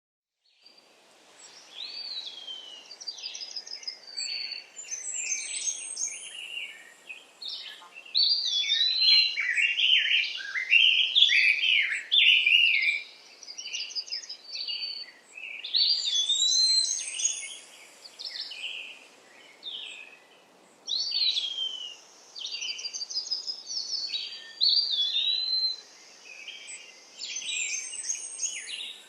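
Several songbirds singing and calling over one another: short chirps, quick trills and repeated rising-and-falling whistles, in phrases that come and go, over a faint steady hiss.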